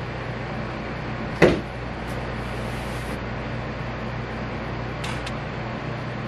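Steady fan-like hum in a small kitchen, with one sharp knock about a second and a half in and a few faint clicks near the five-second mark.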